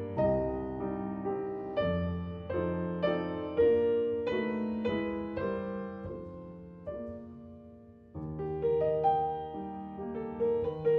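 Background piano music: a slow, gentle run of single notes, each dying away. It thins out almost to nothing about eight seconds in, then picks up again.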